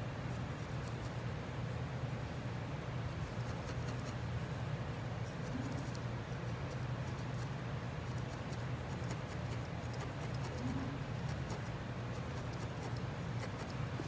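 Barbed felting needle stabbing repeatedly into core wool on a felting pad, compacting it: soft, quick, irregular scratchy pokes. A steady low hum lies under it and is the loudest sound.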